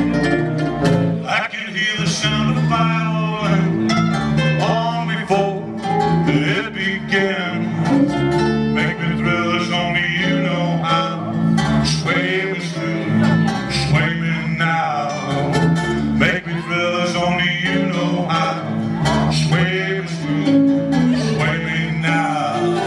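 Live band playing a sixties-style song: guitars over a steady bass line, with drums and a lead line that bends in pitch above.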